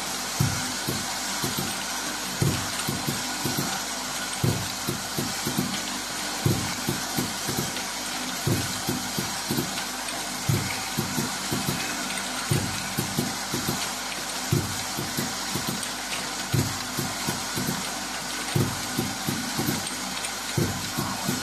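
Desktop bottle filling and capping machine for dropper bottles running: a steady hiss and whir with frequent low knocks and clacks from the indexing turntable and capping head, a louder knock about every two seconds.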